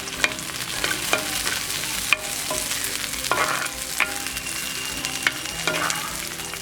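Shallots and garlic frying in hot sesame oil, sizzling steadily, with a utensil stirring them round the pan and clicking and scraping against it at irregular moments.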